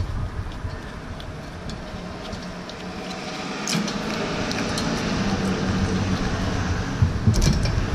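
Steady background hum in a workshop, growing a little louder in the second half, with a few small metallic clicks as a brake caliper bolt is handled and started by hand.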